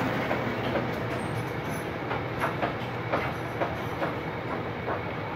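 Steady rumble of street traffic with a run of light, irregular clicks and taps over it.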